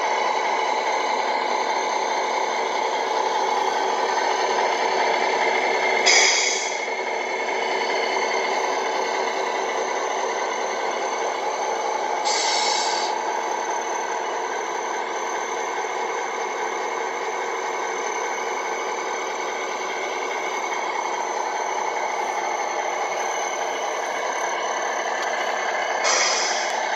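Simulated diesel truck engine idling steadily from the loudspeakers of Tamiya MFC multi-function sound units in RC trucks, thin and without deep bass. Three short hisses of a simulated air brake break in, about 6 s in, about 12 s in and near the end.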